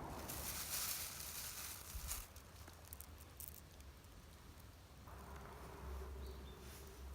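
Faint outdoor ambience: an insect buzzes with a steady hum that sets in about five seconds in. Soft ticks and hiss come in the first two seconds, over low wind rumble on the microphone.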